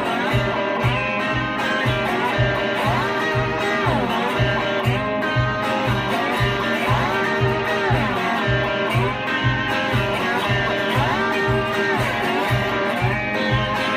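Instrumental break in a country song: a guitar lead with notes that slide up and down in pitch, over a steady beat.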